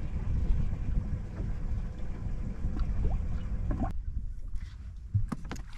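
Wind buffeting the microphone as a steady low rumble, the hiss above it dropping away about four seconds in. A few light knocks come near the end.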